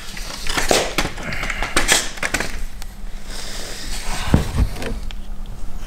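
Plastic bumper trim and its clips on a 2016 Honda HR-V being worked by hand: a run of irregular clicks, taps and scrapes of plastic.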